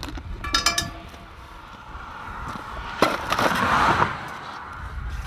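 Metal clinking, most likely the rusty scrap finds and magnet gear in a metal bucket. A short ringing clink comes about half a second in, then a sharp knock about three seconds in followed by about a second of rushing noise.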